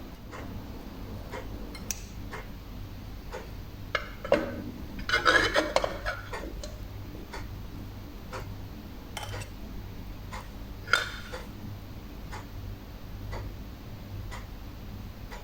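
Kitchen utensils clattering against cookware, with a short burst of clinks and scrapes about four to six seconds in and one sharp clink near eleven seconds. A steady tick about twice a second runs underneath throughout.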